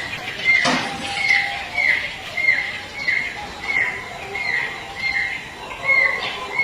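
Baby monkey crying: short, high, falling squeaks repeated evenly a little under two a second, the distress calls of an infant monkey trapped in a coconut. A single knock comes under a second in.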